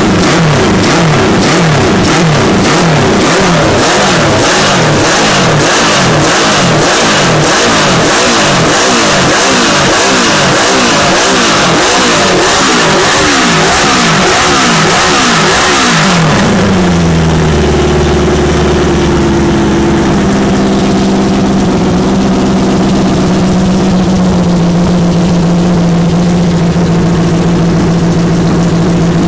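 Honda CB350 Four's air-cooled inline four-cylinder engine being blipped over and over, its revs rising and falling about every half-second, then dropping to a steady idle about sixteen seconds in.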